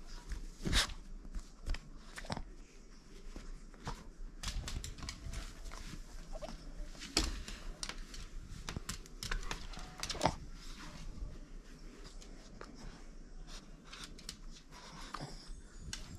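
Boston terrier playing with a large plush toy, mouthing and tugging at it: fabric rustling with scattered sharp clicks and taps, the loudest about a second in and around seven and ten seconds in.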